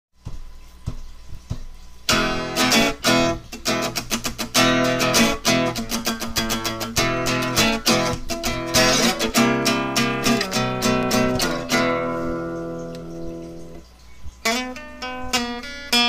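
Intro music on acoustic guitar, played with quick picked and strummed notes. Near the end a chord is left ringing and fading before the playing starts again.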